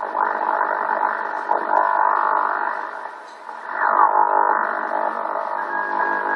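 Strange signal on the 40-meter band coming through an HF radio receiver's speaker: a dense warbling of many overlapping pitch sweeps, thin and band-limited like radio audio, with a steep falling sweep about four seconds in and a short broken beeping tone near the end. The uploader wonders whether it comes from HAARP.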